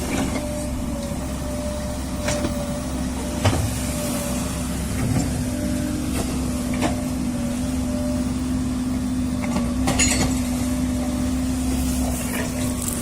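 JCB excavator's diesel engine running steadily under work, with a few short sharp knocks spread through.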